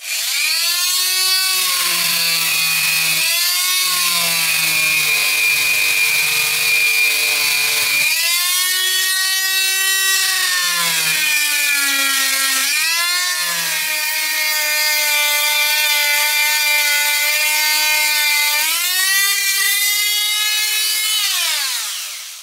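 Handheld rotary tool whining at high speed as its small abrasive bit grinds the steel laminations of an angle-grinder armature, taking off material to balance it. The whine sags in pitch each time the bit bites in, with a gritty grinding underneath, and the tool spins down near the end.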